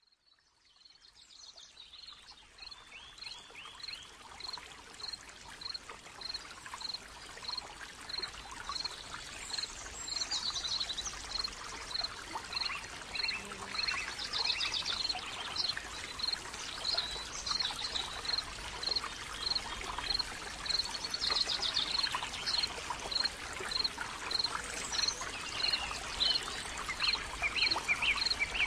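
Birds calling: a high single note repeated about once a second, with short runs of quick chirping trills, over a steady rushing background like running water. The sound fades in over the first couple of seconds.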